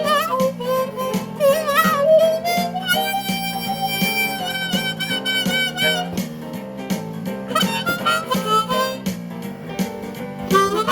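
Blues harmonica playing bending, wavering notes and one long held note, over a steady rhythmic guitar accompaniment.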